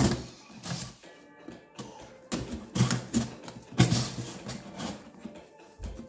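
A cardboard parts box being handled and cut open with a utility knife: irregular scraping, rustling and knocks on the cardboard, the loudest a little over halfway through.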